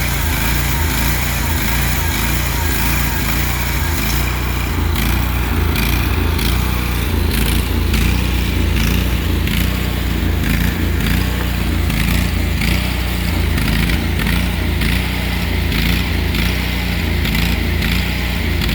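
Bandsaw sawmill running steadily, a loud continuous machine drone with a change in its higher sound about four seconds in.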